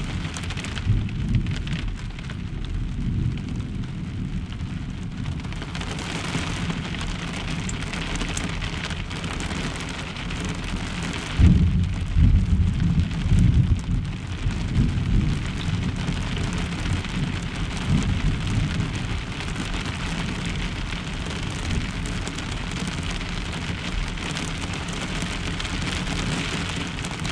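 Heavy rain falling on a pickup truck's camper shell, heard from inside, with a sudden loud rumble of thunder about eleven seconds in that lasts a few seconds.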